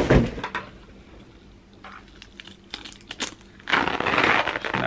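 Heavy rubber car floor mats being lifted and handled: a thump right at the start, a few light knocks, then a loud rustling scrape for about a second near the end.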